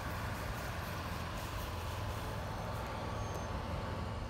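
Steady low background rumble of distant traffic, an even hum with no distinct events.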